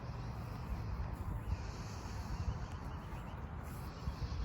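Outdoor ambience with wind buffeting the microphone: a low, uneven rumble with a faint hiss above it.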